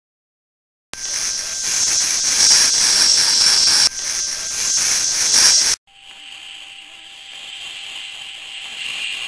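Hissing of a cartoon bug bomb, starting about a second in after a moment of silence. At about six seconds it turns quieter and duller, with a faint steady tone, and slowly grows louder again.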